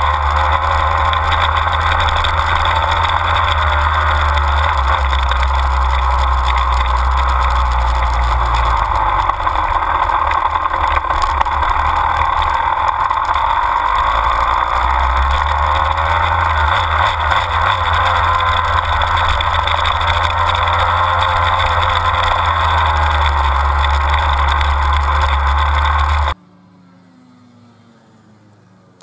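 Honda dirt bike's engine running as it is ridden, heard from a camera mounted on the bike, under a heavy deep rumble of wind on the microphone; the engine pitch rises and falls gently. About 26 seconds in the sound drops suddenly to a distant, much fainter bike.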